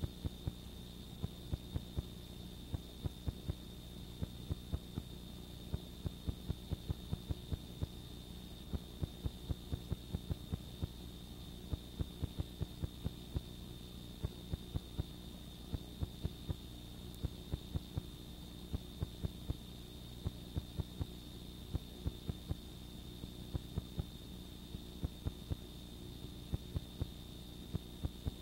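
Steady electrical mains hum with a thin high whine above it, broken by irregular crackling clicks a few times a second: line noise from a VCR with no programme on the tape.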